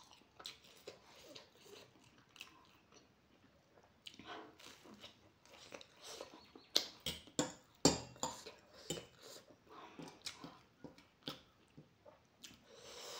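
Close-up chewing of egg-topped bread, with many short wet mouth clicks and smacks, loudest a little past the middle.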